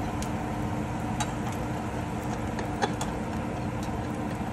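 Spam slices frying in a little oil in a nonstick pan: a steady sizzle with a few sharp clicks scattered through it, over a low steady hum.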